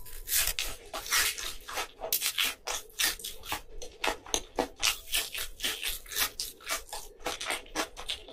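Close-miked chewing of a mouthful of food: wet, smacking clicks that come steadily at about four a second.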